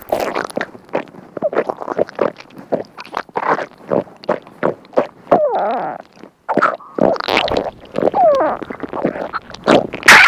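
Stomach gurgling and rumbling sound effect: a rapid string of short gurgles, some with warbling pitch that slides up and down, and a brief pause a little past the middle.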